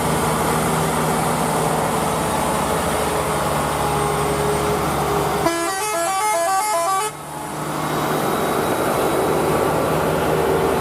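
Steady truck engine running under a wash of rain noise. About halfway through, a musical vehicle horn plays a quick run of short stepped notes for about a second and a half.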